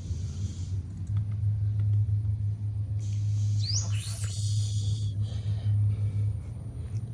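Domestic cat purring close to the microphone, a steady low rumble that grows louder about a second in and eases off just after six seconds. A brief high rising squeak sounds about four seconds in.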